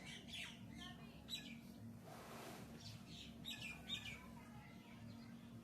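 Faint birds chirping in short, falling chirps, several in quick succession at times, over a steady low hum. About two seconds in there is a brief rustle.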